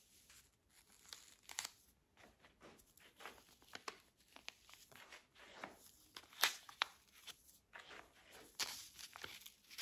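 Paper sewing pattern crinkling and rustling as it is laid over another pattern piece and lifted and smoothed against cotton gauze fabric. The rustles are faint and irregular, with a sharper crackle a little past the middle.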